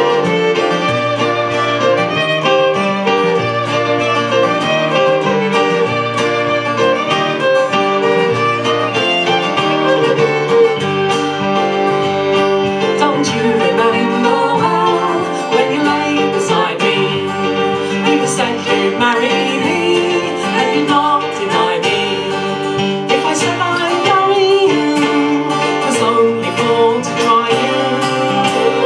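Fiddle leading an instrumental break of a folk song over strummed acoustic guitar and keyboard accompaniment, played live.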